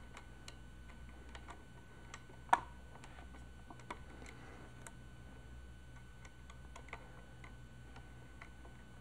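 Faint, irregular small clicks and ticks of Allen screws and an Allen wrench being worked into a Redi-Mag's plastic thread block, with one sharper click about two and a half seconds in.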